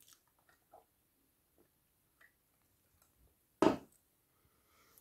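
Faint small clicks and mouth noises, then one short, loud sniff about three and a half seconds in as perfume oil on the forearm is smelled up close.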